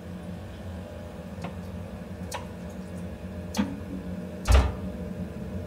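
Gas boiler switching on: a steady low hum with several sharp clicks and a louder low thump about four and a half seconds in.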